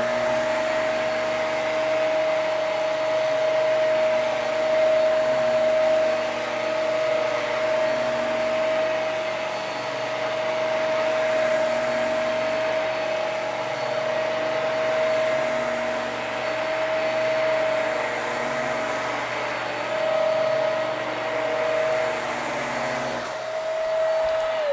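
Hoover Max Life Pro Pet Swivel upright vacuum running steadily with a high motor whine, then winding down as it is switched off at the very end.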